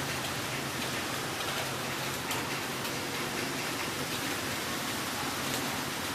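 Heavy rain falling steadily, an even hiss with a few scattered drop ticks.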